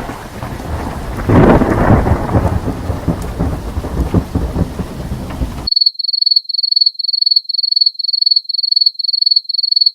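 Thunderstorm sound effect: heavy rain with rolling thunder that swells about a second in. It cuts off abruptly before the halfway point, and a high electronic beep then repeats about twice a second.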